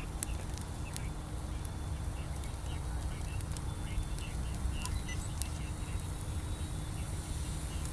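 Charcoal burning in a grill, crackling with scattered sharp clicks and pops over a low steady rumble.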